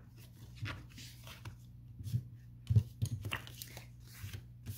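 Balmy blue cardstock being creased along its score lines with a bone folder and folded by hand: irregular short scrapes and light taps of paper against the table, the loudest about two and a half seconds in.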